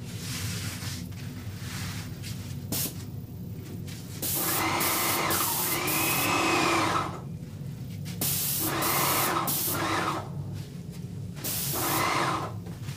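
Paint sprayer laying down the final heavy, wet coat of polyurethane: a steady low hum, with three louder hissing, whining passes about 4, 8 and 11.5 seconds in, each lasting one to three seconds.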